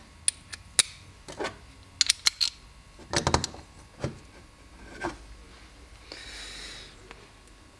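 Small metal carburettor parts and hand tools clicking and tapping irregularly while a Stromberg carburettor is taken apart, with a short hiss about six seconds in.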